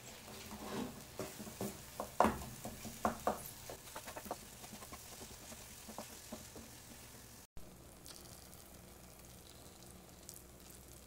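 Wooden spatula stirring and scraping a thick chickpea, tomato and potato mixture as it sautés in a pan, with irregular knocks and a light sizzle. After a short break about seven seconds in, the knocks mostly stop and a quieter steady hum remains.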